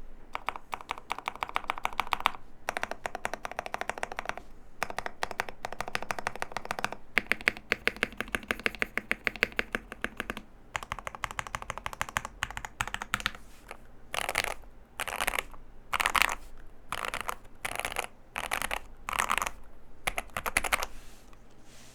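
Modded NovelKeys NK87 mechanical keyboard with lubed and filmed Banana Split linear switches and Infinikey caps, typed on fast and steadily. Near the end the typing breaks into a series of short, separate bursts of keystrokes.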